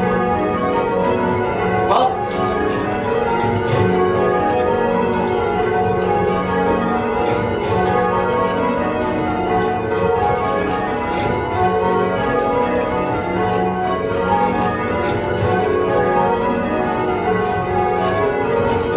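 Change ringing on a ring of eight church bells: a 14 cwt ring cast by Taylors in 1925, with the tenor in F sharp. The bells strike one after another in a continuous, even stream of changes.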